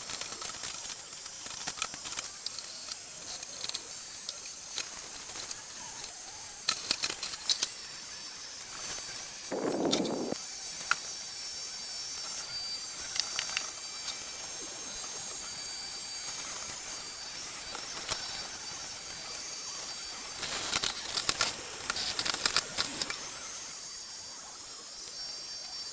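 Xiaomi X10+ robot vacuum-mop running: a steady high hiss from its suction, with scattered clicks and knocks, clustered near the middle and again about two thirds through, and a duller low burst about ten seconds in.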